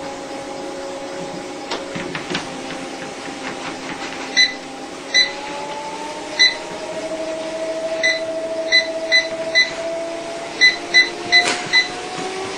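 Treadmill motor whining steadily under the moving belt, its pitch rising in two steps as the speed is turned up. About a dozen short, high console beeps from button presses are the loudest sounds, several in quick runs about two-thirds of the way in and near the end.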